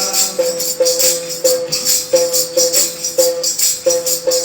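Instrumental break in a Hindi devotional bhajan: a melody instrument plays short repeated notes over jingling percussion that keeps a steady beat.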